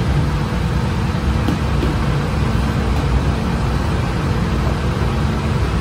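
Steady low rumble of bakery machinery running, with a faint steady hum over it.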